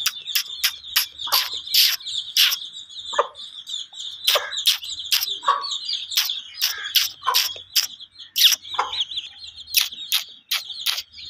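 A brood of young chicks peeping continuously, many short high calls overlapping, several of them sliding down in pitch.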